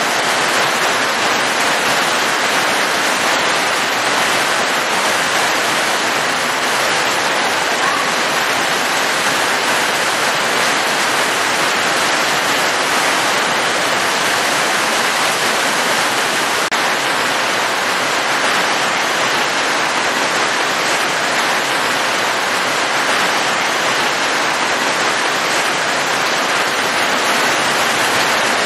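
Rain falling steadily: an even, unbroken hiss with no single drops or other events standing out.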